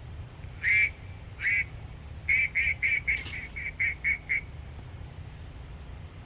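Duck quacks: two single quacks, then a quick run of about nine at roughly four a second, with a sharp click partway through the run.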